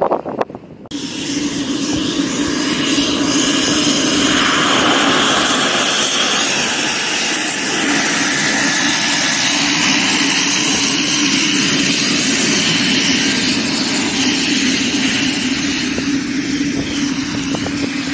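Storch STOL aircraft's propeller engine running at taxi power. It comes in about a second in, builds over the next few seconds and then runs steadily.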